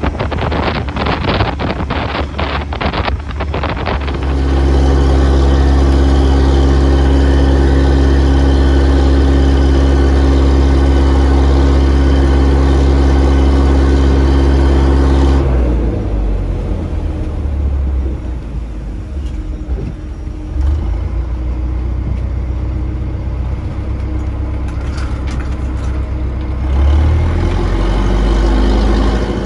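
Fishing boat's engine running steadily under way, a strong low hum, with a rapid clatter of knocks in the first few seconds. About halfway through the steady engine tone gives way to a rougher rushing noise that swells again near the end.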